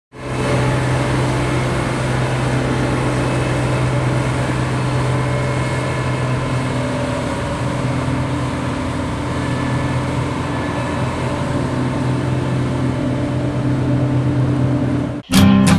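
Diesel engine of farm machinery running steadily at constant speed. It cuts off abruptly near the end as guitar music starts.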